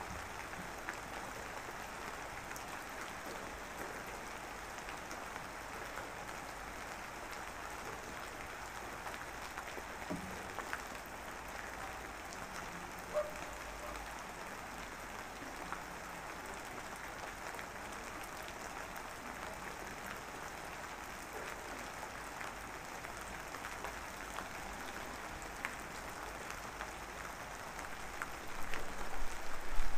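Steady rain falling, an even hiss with scattered drips. Near the end, louder irregular noises come in.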